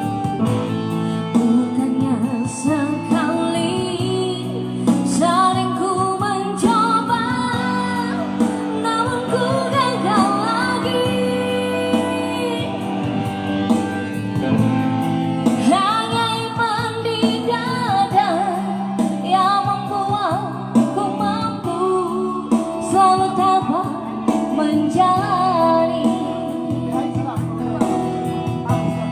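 A woman singing with guitar accompaniment, her voice gliding between held notes.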